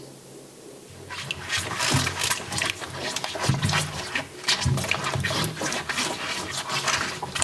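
Water running and splashing, starting about a second in, uneven, with scattered small knocks.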